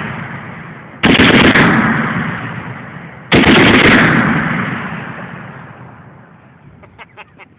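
Two loud rifle shots, about a second in and again just over two seconds later, each followed by a long rolling echo that slowly dies away. The tail of an earlier shot fades out at the start, and a few faint clicks come near the end.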